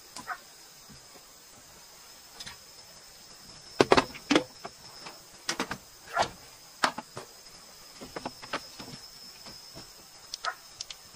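Night insects chirp steadily at a high pitch, with a scatter of sharp knocks and clatters from things being handled on a slatted bamboo floor, the loudest cluster about four seconds in.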